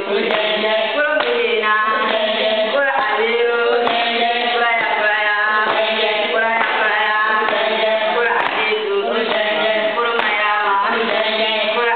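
Group of children singing a rhythmic game song together in chorus, the phrases repeating steadily, with a few faint taps of stones on the concrete floor.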